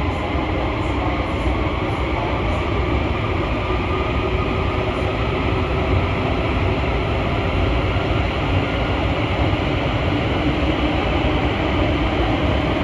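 Rubber-tyred MP14 Paris Métro train running, a steady rumble heard from inside the car.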